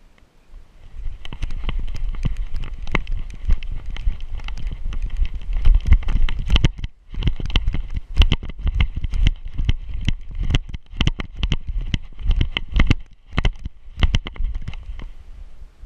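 Dog running through snow with a camera strapped to its back: rapid knocks and clicks from its strides and jostling collar hardware over a low rumble of rubbing and wind on the camera housing. The run starts about a second in, breaks off for a moment near the middle, and thins out near the end.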